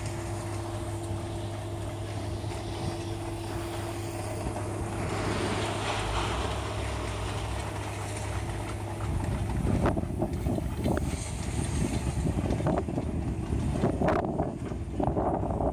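A steady low hum for the first half, then from about nine seconds in, uneven gusts of wind buffeting the microphone.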